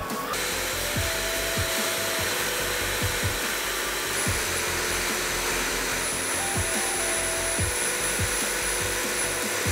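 Pulsed fiber laser cleaning head ablating paint off steel: a steady, even hiss, with a faint thin high whine over it in the second half.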